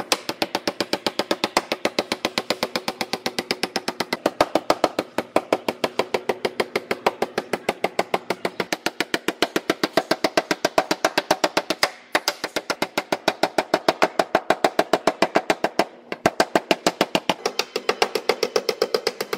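Body hammer tapping quickly on a dolly along the edge of a new steel door skin, folding its hem flange over the door shell: an even run of about six ringing metallic taps a second, with two brief breaks in the second half.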